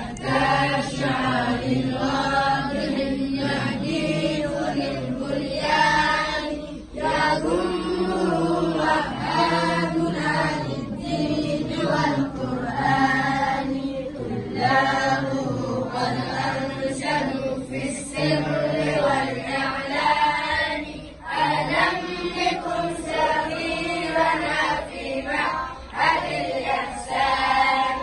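A group of children chanting together in unison, phrase after phrase, with brief breaks between phrases.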